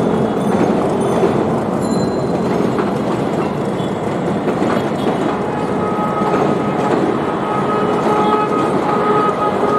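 Train rolling past on the rails, a steady loud rumble of wheels on track, with a faint steady whine joining about six seconds in.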